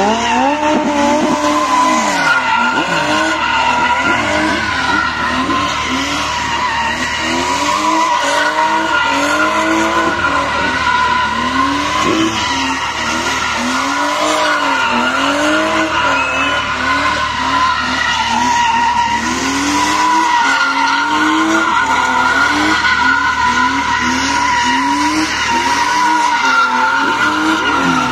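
BMW Z3 drift car doing donuts: its tyres squeal steadily as they spin and slide, while the engine revs rise and fall about once a second with the throttle.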